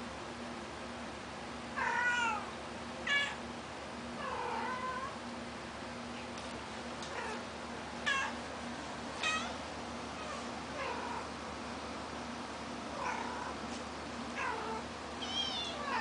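Mother cat calling her kittens with about ten short meows, spaced a second or two apart, some with a wavering, trilling pitch.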